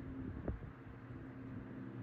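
1954 Robbins & Myers C-12 12-inch oscillating table fan running: a steady motor hum under a hiss of moving air, with a single light click about half a second in.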